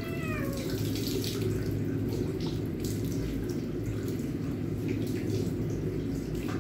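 Bath tap running steadily and splashing onto a long-haired white cat as it is washed. The cat meows once right at the start.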